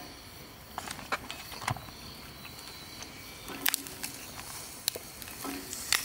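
Wood fire crackling, with a handful of sharp, scattered pops over a faint steady hiss of food cooking on a hot iron griddle.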